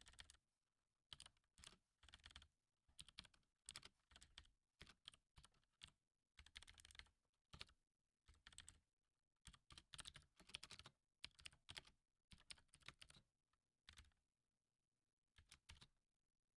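Faint typing on a computer keyboard: runs of quick keystrokes broken by short pauses.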